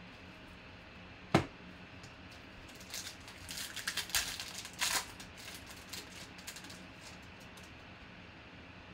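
A single sharp tap about a second in. Then the foil wrapper of a 2020 Panini Legacy Football card pack crinkles and tears open in a quick flurry for about two seconds, followed by fainter rustling of cards being slid out.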